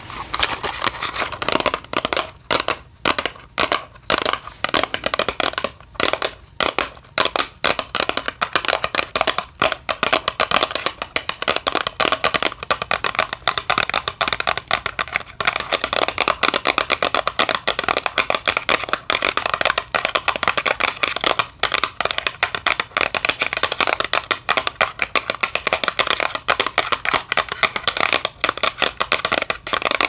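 Continuous rapid crackling and clicking from an object handled close to the microphone as an ASMR trigger, patchy in the first few seconds and then dense and unbroken.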